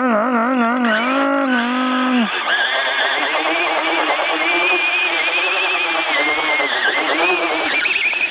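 A wavering pitched tone for about the first two seconds, then the SKYRC SR5 1/4-scale RC motorcycle's electric motor whining, its pitch rising and falling with the throttle, over a steady rushing noise.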